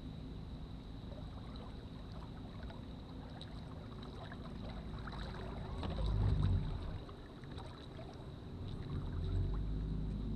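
A boat motor running at a steady speed, with louder low surges about six seconds in and again near nine seconds.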